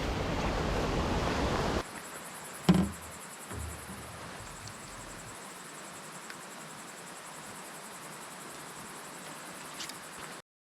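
Mountain stream running, cut off abruptly about two seconds in to a much quieter steady hiss with a single knock; the sound stops shortly before the end.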